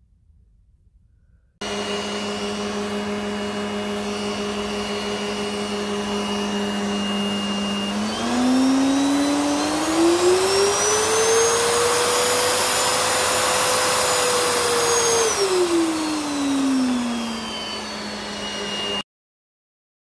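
Samsung Easy bagged canister vacuum cleaner running at low power. As the power dial is turned up, the motor speeds up over a few seconds to a higher whine, holds there, then winds back down to low power. The sound starts and cuts off suddenly.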